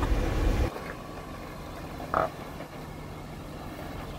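Jeep Wrangler's engine running low and steady as it crawls down a steep rock ledge. A loud low rumble cuts off abruptly under a second in, and a brief croak-like call sounds about two seconds in.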